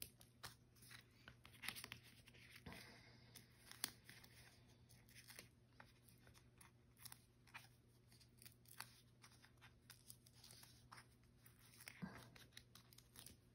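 Faint, irregular small clicks and scratches of fingernails picking and peeling the backing papers off foam adhesive squares on the back of a cardstock panel.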